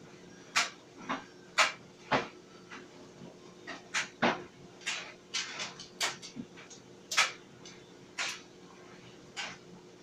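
Clothes dryer running: a steady motor hum with irregular sharp clicks and knocks, one or two a second, as the load tumbles in the drum.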